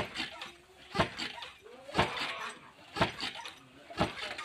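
Dhenki, a foot-operated wooden rice-pounding lever, thudding down into its mortar pit about once a second as rice is pounded into flour.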